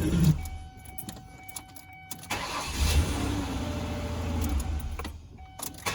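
Ford Escape engine started about two seconds in and running, cut off briefly near the end and started again. It fires readily, not reproducing the intermittent crank-but-no-start fault.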